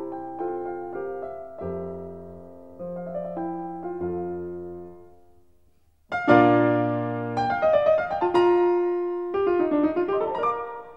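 Background piano music: a soft passage dies away to near silence about halfway through, then a louder passage starts with a strongly struck chord.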